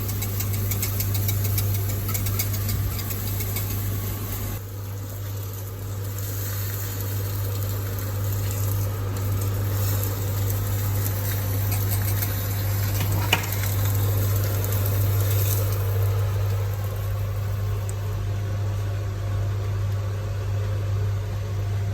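A steady machine hum: a constant low drone with an even hiss over it, like a small motor running, with one sharp click about 13 seconds in.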